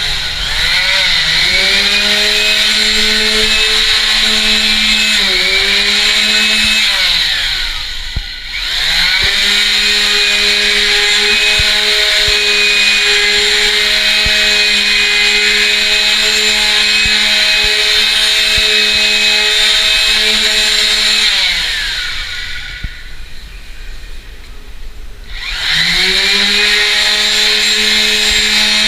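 Electric wall sander's motor running at a steady pitched hum with a high hiss. Twice it is switched off and winds down, then starts again and spins back up.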